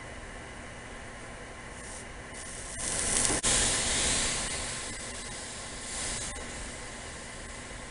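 A hiss, loudest for about two seconds near the middle with a brief break, and a shorter, fainter swell near the end.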